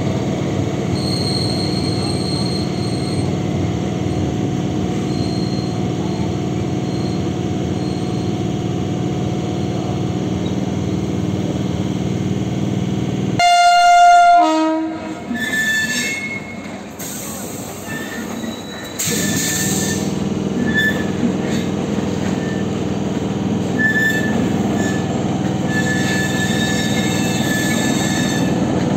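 Indian Railways passenger train running with a steady rumble. About halfway through, a train horn gives one short, loud blast. In the last third, high wheel squeals come and go over the rumble.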